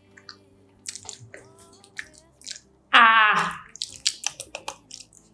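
Close-up eating sounds: chewing with wet mouth clicks and smacks, thickest a second or so before the end, and one short loud voiced sound from the eater about three seconds in.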